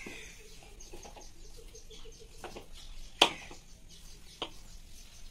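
Hands kneading soft rice-flour dough in a steel bowl, with a few sharp knocks against the bowl, the loudest about three seconds in. Small birds chirp faintly in the background.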